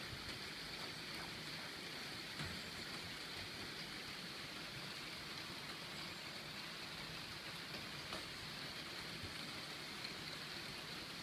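Steady, even hiss with a few faint ticks scattered through it.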